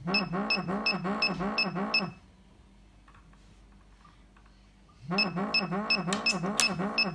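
Jeemak pinpointer sounding its detection alarm, a pulsing warble at about three pulses a second. It comes in two bursts, for about two seconds at the start and again from about five seconds in, as it picks up a copper-plated steel coin about six centimetres from its tip.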